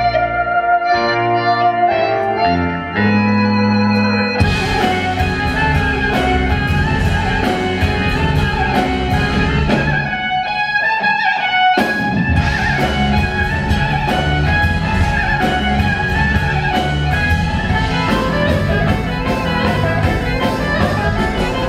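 Live progressive rock band playing, recorded on a compact camera's microphone. Held keyboard chords over bass open; about four seconds in, the drums and full band come in. The drums drop out briefly in the middle, then the full band crashes back in.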